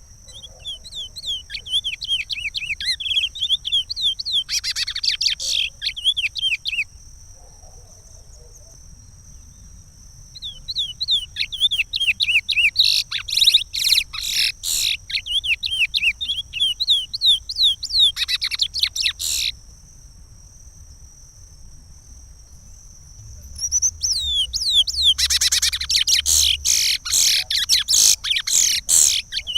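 Chestnut-bellied seed-finch (curió) singing the Pará regional song type, a fast run of chirped, sliding whistled notes. It comes in three bouts, with pauses of a few seconds after the first and second. A steady high tone lies under the song.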